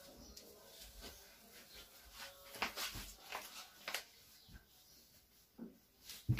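Faint rustling of bedding and shuffling movement close by, with a few brief soft noises around the middle and a short low knock at the very end.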